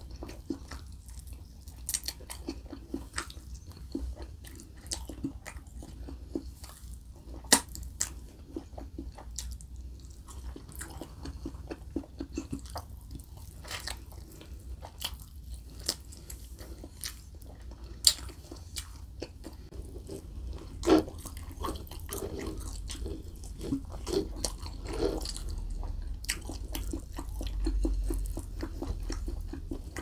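Close-miked eating of saucy barbecue pork ribs: wet chewing and biting as meat is pulled off the bone, full of sharp sticky clicks and smacks, with a few louder snaps of biting.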